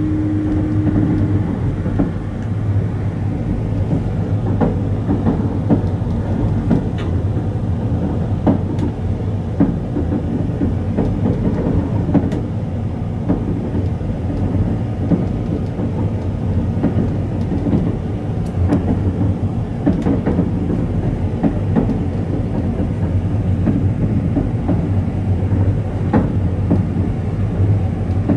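Passenger train running noise heard from inside the car: a steady low rumble with frequent irregular clicks and knocks from the wheels on the rails.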